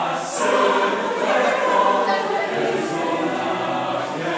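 Choir singing a cappella, many voices holding steady chords.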